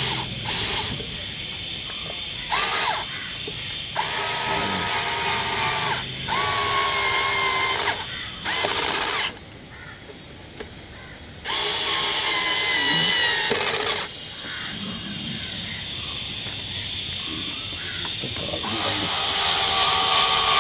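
Cordless power drill/driver running in several short runs of a second or two each, its whine dipping slightly in pitch under load as it drives screws, with a quiet pause about halfway through.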